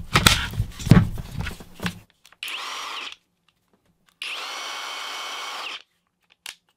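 Kobalt 24V XTR 1/2-inch impact wrench's brushless motor run free without load in trigger bursts: a short one about two and a half seconds in and a longer one of about a second and a half around four seconds in. Each whines up to speed and winds down. Before that come the clatter and click of the battery pack being snapped on and the tool handled.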